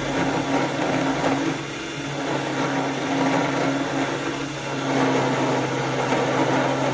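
Spindle driven by a 775 DC motor running a 10 mm end mill as it cuts into a metal cylinder: a steady motor hum under the noise of the cutter in the metal.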